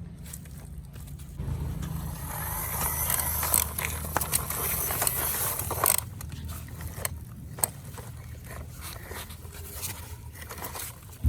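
Plastic toy trucks being handled and pushed along: a scraping rattle for a few seconds, then scattered clicks and knocks, over a steady low hum.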